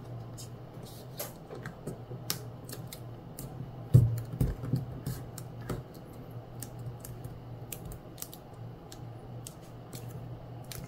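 A sheet of origami paper being folded and creased by hand: crisp rustles and small crackles, with a dull thump about four seconds in, over a steady low hum.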